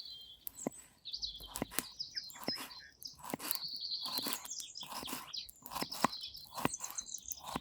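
Small birds chirping in runs of short high notes, over a steady scatter of irregular sharp clicks and crunches.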